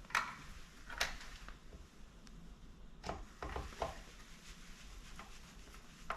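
Light clicks and taps of a screwdriver and screw against a KitchenAid stand mixer's aluminium casing as a screw is driven back in: a few single clicks, with a quick cluster of three or four about three seconds in.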